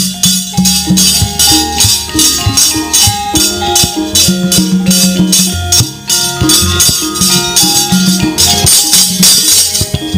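Javanese gamelan playing a brisk wayang kulit accompaniment: a melody on bronze metallophones with a drum, over a fast, steady jingling of small cymbals.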